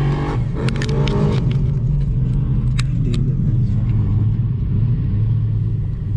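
2019 Jeep Wrangler JL driving slowly over a dirt track, its engine running with a steady low drone. A few sharp ticks come about a second in and again near three seconds.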